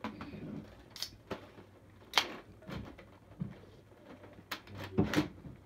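Handling noise of a phone camera with its lens covered: a few scattered knocks and rubs, the loudest about two seconds in and near the end.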